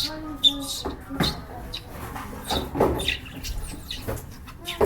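Lovebirds calling in many short, sharp chirps.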